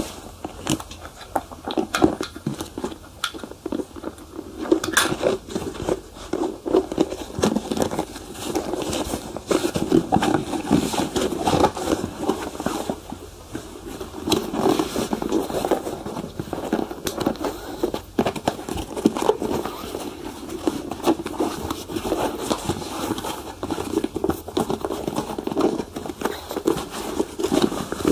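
Shoe being polished by hand: continuous irregular rubbing strokes on the leather, with scattered small clicks and crackles.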